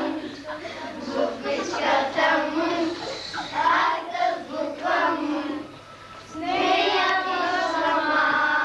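A group of young children singing together in unison, with a brief pause about six seconds in before they carry on.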